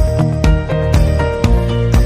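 Background music with a steady beat, bass and melodic notes.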